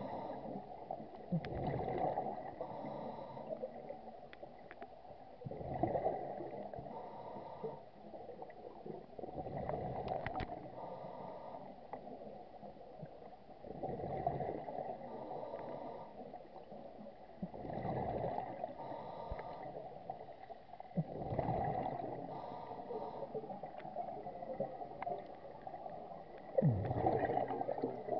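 Scuba diver's exhaled bubbles from a regulator, gurgling out in swells about every four seconds in a steady breathing rhythm underwater.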